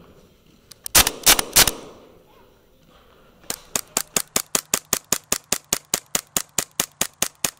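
Three loud shots in quick succession about a second in, then, from about three and a half seconds, a Novritsch SSP5 gas blowback airsoft pistol fired rapidly: an even run of sharp shots, about five a second.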